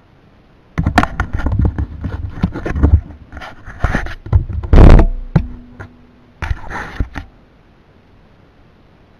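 Close handling noise: a run of rubbing, scraping and knocking sounds starting about a second in, the loudest knock about five seconds in, followed by a short steady hum.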